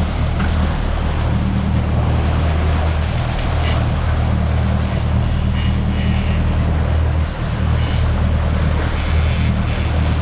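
Boat engine running steadily under way while trolling, a low steady hum, mixed with the rushing wash of the wake and wind on the microphone.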